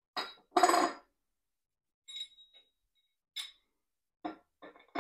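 Steel parts of a homemade cylinder-sleeve puller clinking and ringing as they are handled and lifted off the pulled sleeve: about half a dozen separate metallic knocks, the loudest just under a second in, one leaving a brief ringing tone about two seconds in.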